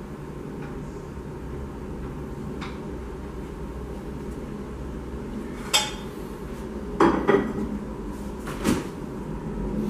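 Kitchenware clattering: a handful of sharp clinks and knocks of dishes and utensils being handled at the counter, over a steady low hum.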